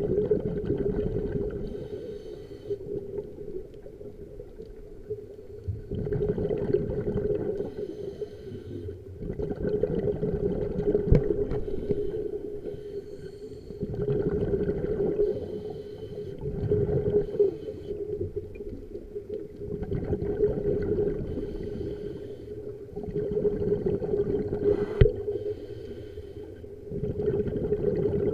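A scuba diver breathing through a regulator underwater: bubbling exhalations that swell and fade about every three to four seconds, over a steady low hum.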